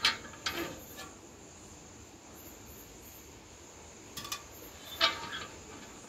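A few short knocks and scrapes as a metal pail is handled and a young Jacobin cuckoo is lifted out and set on a concrete floor, over crickets chirping steadily.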